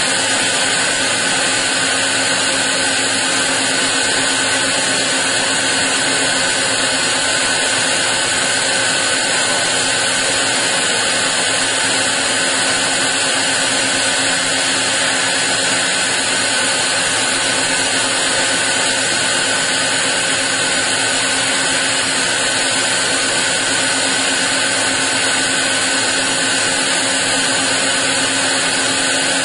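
CNC milling machine cutting into a metal block, a steady machining noise with a few constant whining tones that does not change throughout.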